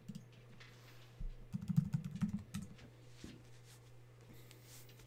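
Computer keyboard typing and clicking, with a quick run of keystrokes about a second and a half in, over a low steady hum.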